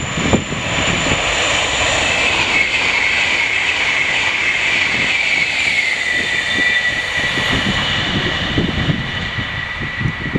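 Alstom Pendolino (PKP Intercity ED250) electric high-speed train passing at speed: a steady rush with a high whine that drops slightly in pitch as it goes by, about six seconds in. Wind buffets the microphone near the start and again near the end.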